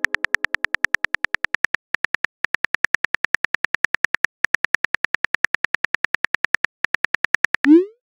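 Keyboard click sound effects from a texting-story app, about eight even clicks a second as a message is typed, with a few short pauses. Near the end a short rising whoosh marks the message being sent.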